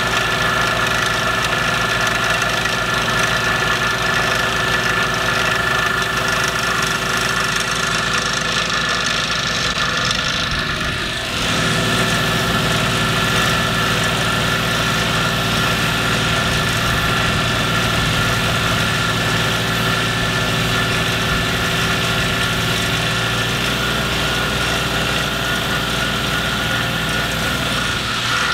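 Engine of a ride-on vibratory plow (pipe puller) running steadily.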